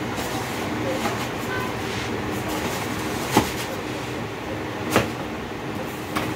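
New sneakers and their cardboard shoebox being handled, with two sharp knocks about three and a half and five seconds in, over a steady background hum.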